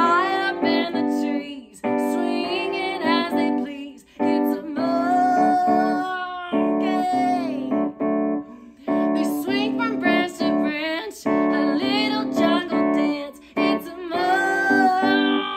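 A children's song: a woman singing over piano chords played in a steady, repeated rhythm, with short breaks between phrases.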